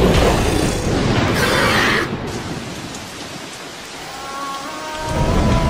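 Rain falling, with a loud swell of thunder in the first two seconds before it settles to a steady patter. A few soft held music notes come in near the end.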